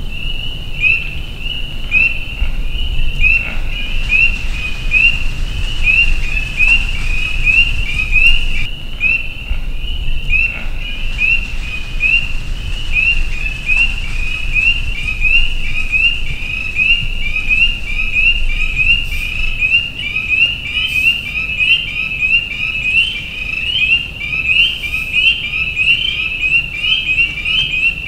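A chorus of frogs calling: short, high, rising peeps repeated over and over, overlapping several to the second, with no break.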